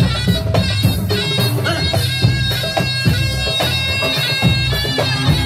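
Live Lebanese dabke-style band music in an instrumental break: a reedy, bagpipe-like wind melody over steady drums.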